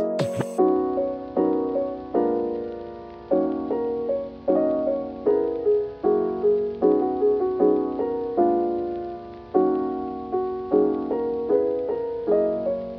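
Background music: a slow piano piece of gently decaying chords, ending abruptly near the end.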